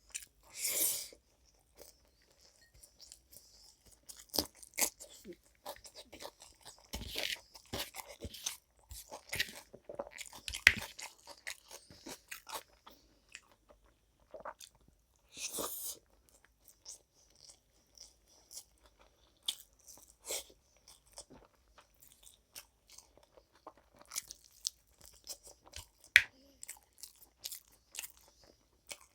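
Close-miked eating: a person chewing and crunching food, with irregular wet mouth clicks and crackles. Two brief louder swishes come near the start and about halfway through.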